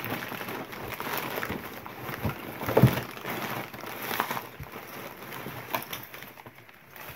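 Rummaging through a storage tote of papers and Ziploc bags: irregular rustling and small clacks of items being moved, with one louder knock about three seconds in.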